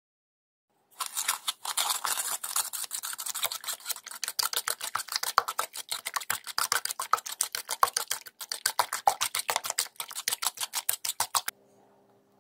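Raw eggs being beaten by hand in an enamel bowl: a utensil beats the eggs and scrapes against the bowl in quick, even strokes, about seven or eight a second, that stop abruptly near the end.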